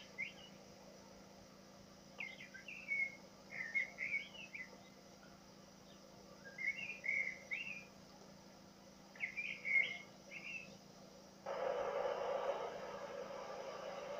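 A small songbird singing in four short bursts of quick, chirpy phrases a few seconds apart. Near the end a steady vehicle noise starts suddenly, as a lorry crosses the bridge.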